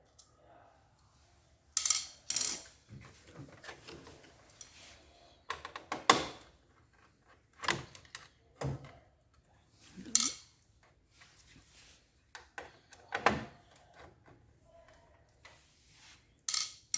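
Hard parts of a copier's main motor drive assembly being handled and set down during disassembly: a series of separate knocks, clicks and clatters a second or more apart, with light rustling between them.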